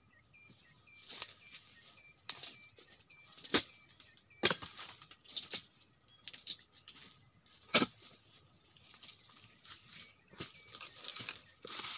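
Sharp knocks of a long-handled pruning chisel's blade chopping into oil palm frond bases, about six irregular strikes, over a steady high insect drone. A short chirp repeats about twice a second during the first few seconds.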